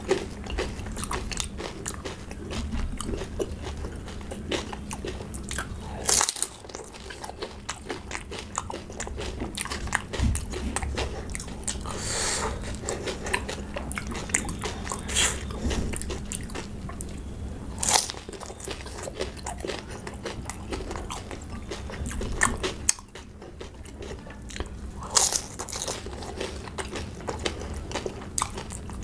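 Close-miked crunching and chewing as crisp, hollow pani puri shells topped with raw green chillies are bitten and eaten. Dense crackly chewing runs throughout, with a few louder, sharper crunching bites standing out.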